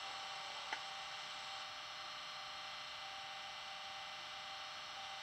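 Bachmann Class 37 model's DCC sound decoder playing a Class 37 diesel engine idling through an upgraded double iPhone speaker: a steady hum of several fixed tones. A single click comes under a second in.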